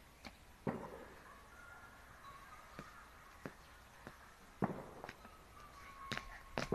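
A jump rope slapping on a concrete yard at irregular intervals, as single sharp slaps with a quicker run of them near the end.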